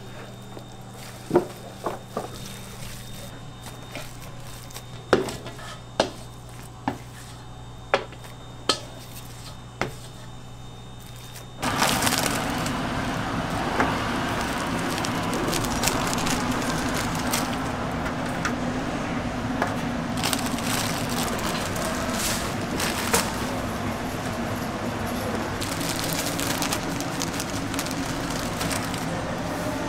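Gloved hands squishing croquette filling in a steel bowl, with a few sharp knocks over a low steady hum. About twelve seconds in the sound changes suddenly to a louder, steady noise with occasional clicks while loaves of sliced bread are handled on a metal baking tray.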